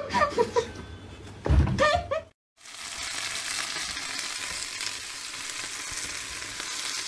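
A brief voice and a loud thump early on, then after a cut a steady, even hiss that runs on without change.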